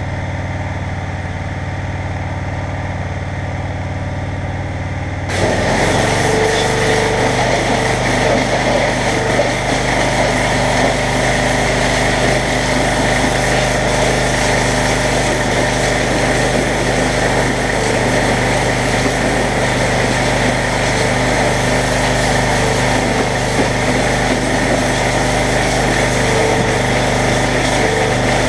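Pressure washer's small engine running steadily; about five seconds in the wand opens and a loud hiss of the water jet striking a bare engine block joins it, carrying on with the engine under load.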